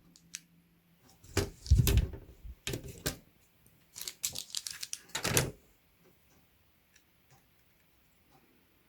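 Clicks, taps and small rattles of mechanical keyboard switches and keyboard parts being handled and fitted. They come in scattered clusters for about five and a half seconds, then only a few faint ticks.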